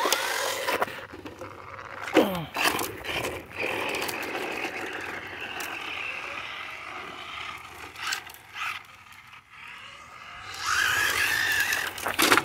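Battery-powered remote-control car's electric motor whining as it drives, with its tyres scrabbling over gravel and dirt; the whine swells again near the end as the car speeds up.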